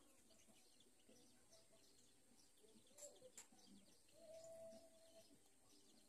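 Near silence: faint background hiss with two faint sharp clicks about halfway through, and a faint steady tone held for about a second near the end.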